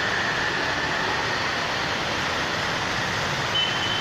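Steady rushing noise of a car moving through heavy monsoon rain and floodwater, heard from inside, with a short thin high tone near the end.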